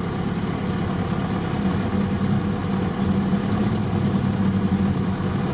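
A 4x4 crawling along at low speed, its engine running steadily, together with the noises of a broken CV joint in its drivetrain.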